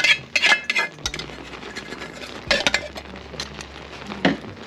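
Metal ladle clinking and scraping against a stainless-steel sauté pan while stirring jute-leaf soup: a quick run of clinks in the first second, then scattered single clinks.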